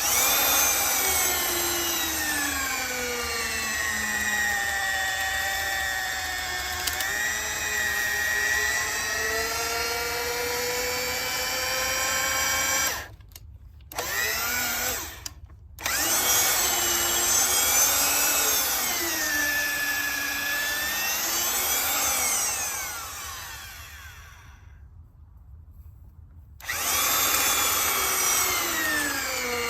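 Power drill motor running in long stretches, its pitch rising and falling as the load and trigger change. It stops briefly twice near the middle, winds down, and starts up again near the end.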